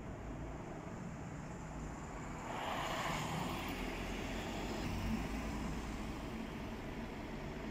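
Street traffic: a car passes close by, its tyre and engine noise swelling about two and a half seconds in and fading over the next few seconds, over a low steady engine rumble.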